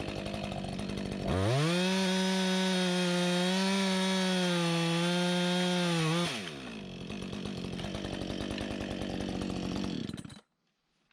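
Gas chainsaw running, opened up to full throttle for about five seconds at a steady high pitch, then dropping back to a lower speed before cutting off abruptly near the end.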